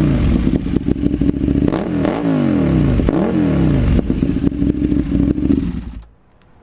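Kawasaki Ninja ZX-6R 636's inline-four engine through a slip-on muffler with little baffle, nearly straight-through, revved in repeated quick blips while standing in neutral; very loud, pitch rising and falling several times. The engine sound cuts off abruptly near the end.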